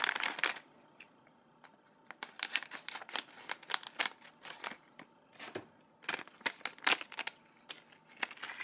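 A foil blind-bag wrapper crinkling and crackling as it is cut open with scissors and handled, in two spells of quick sharp clicks and rustles.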